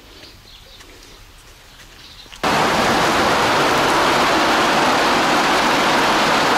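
Heavy rain falling on a paved yard, a steady hiss that starts abruptly about two and a half seconds in, after a short stretch of faint outdoor ambience.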